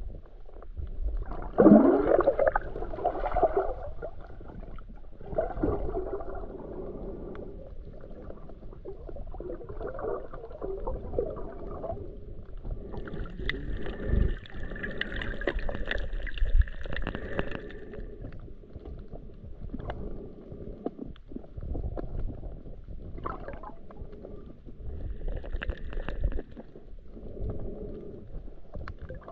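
Muffled underwater noise from a GoPro in its housing while snorkeling: water sloshing and gurgling around the camera, with a loud gurgle about two seconds in. A faint steady whine comes in for several seconds mid-way and briefly again near the end.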